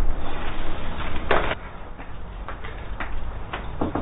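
A short noisy burst about a second in, then knuckles knocking on a front door, starting just before the end.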